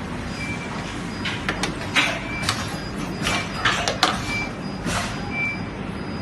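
Battery laser welding machine working: a string of short, sharp bursts at irregular intervals over a steady machine hum, with a short high beep repeating about once a second.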